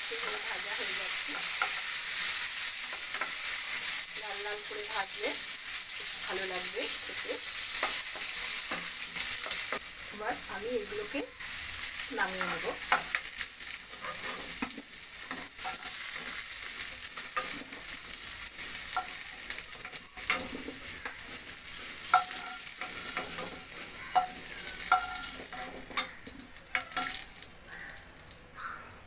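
Potato and pumpkin cubes sizzling as they fry in hot mustard oil in a nonstick pan, stirred and scraped with a utensil. In the second half a metal spoon scoops them out with sharp clicks against the pan, and the sizzle dies down near the end as the pan empties.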